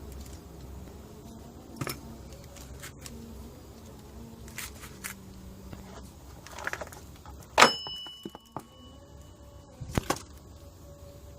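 Metal hand tools and parts clinking and tapping during engine work. One sharp metallic clank about two-thirds of the way through rings briefly, and a couple of quicker clicks follow near the end.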